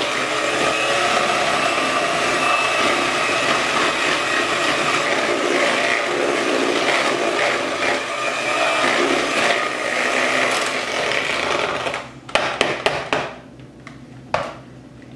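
Electric hand mixer running steadily, its beaters churning through a bowl of creamed butter, sugar and eggs as the second egg is beaten in. The motor cuts off about 12 seconds in, followed by a few sharp knocks.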